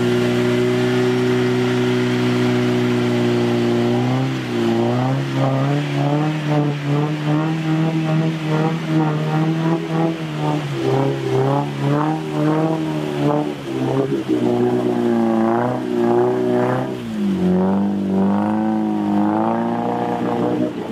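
Kia Sportage's engine running hard at high revs while wading through deep muddy water, wheels churning and splashing. The revs hold steady for about four seconds, then rise and fall quickly over and over as the SUV forces its way through.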